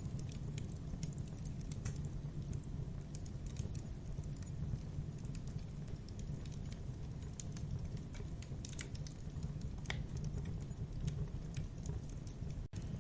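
Wood campfire burning: a steady low rumble of flames with irregular sharp crackles and pops from the burning wood. A split-second gap in the sound near the end.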